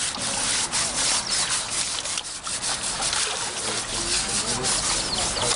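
Coconut husks scrubbing a young elephant's wet hide, a dense run of quick rasping strokes.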